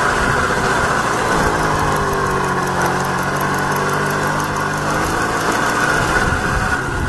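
Small moped engine running as the moped is ridden, its pitch dipping slightly and picking up again in the middle; the moped is being run in.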